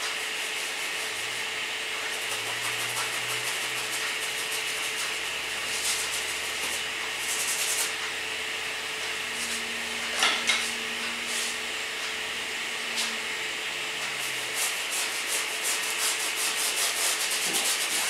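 Paintbrush scrubbing acrylic paint onto a stretched canvas in repeated strokes, quickening into a run of short strokes near the end. About ten seconds in, a brief clatter as brushes in the brush jar are knocked together.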